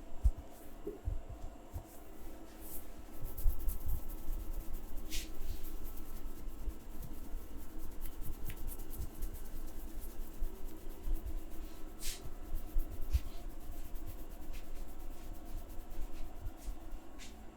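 Hands massaging, rubbing and kneading against hair and skin, with soft low thumps and a few brief swishes.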